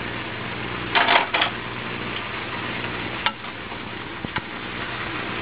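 Vegetables sizzling faintly in a wok as they are stirred and tossed with bamboo utensils. There are a couple of loud scraping strokes about a second in and single sharp knocks of wood on the pan a little after three and four seconds. The wok is not hot enough for a true stir-fry, so the vegetables are mostly steaming.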